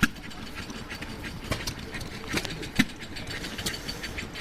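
Vintage hit-and-miss engines running, with irregular sharp clicks and knocks over a steady mechanical background.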